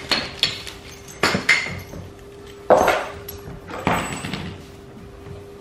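White plastic safety gate being fitted into a doorway: several sharp plastic clacks and rattles as its panels and latch are pushed and set into place.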